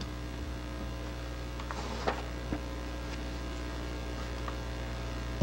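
Steady electrical mains hum in the recording, with a couple of faint clicks about two seconds in.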